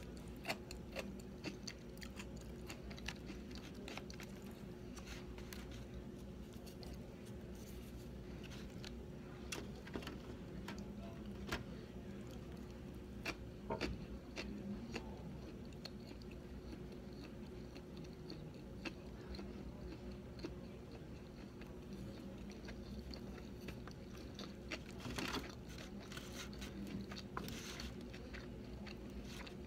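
A person chewing and biting into a sushi roll, with small wet mouth clicks and smacks scattered throughout, over a steady background hum.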